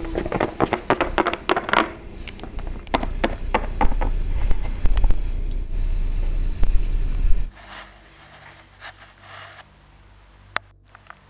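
Handling noise as plastic toy figures and stones are knocked and scraped about on a wooden surface: a quick run of clicks and knocks, then a low rumble with more knocks. The rumble cuts off about seven seconds in, leaving only a few faint clicks and one sharp click near the end.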